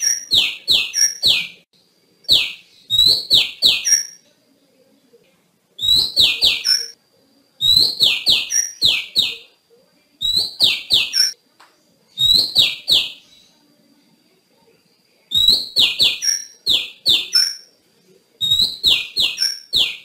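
Female Oriental magpie-robin calling: repeated bouts of quick down-slurred notes with short high notes between them. Each bout lasts a second or two, with short pauses between bouts.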